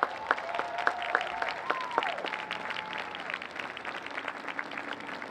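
Scattered hand clapping from a small group after a pipe band's piece ends, the individual claps distinct. Over the first three seconds a few held tones waver and glide up and down, then stop.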